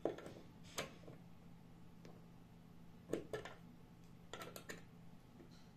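Light clicks and scrapes from the metal tip of an indicator screwdriver touching the metal contacts and earth clip of a wall socket, a handful of times over a faint steady low hum.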